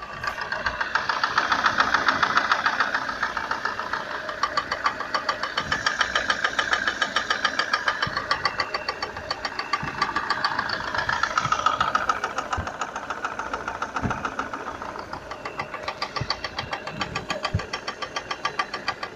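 Car engine running with a rapid, regular knock several times a second; the level swells and eases a few times. This is the engine knock the owner is recording.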